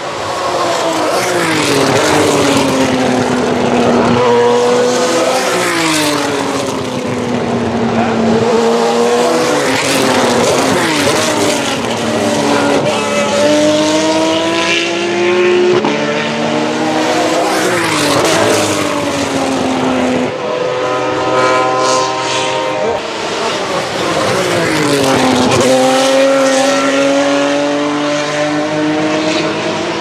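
Several F2/F3 single-seater race cars with V6 engines, one after another, braking and downshifting into a chicane. Their engine notes drop sharply in pitch several times, and in between they climb slowly again as the cars pull away.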